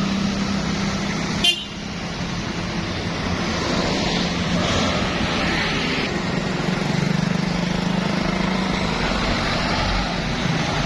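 Bus at close range with its engine running and its telolet horn sounding, under steady engine and road noise. A sharp click comes about one and a half seconds in.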